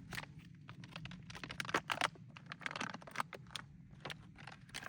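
Plastic MRE food pouch being handled, a quick run of sharp crinkles and crackles.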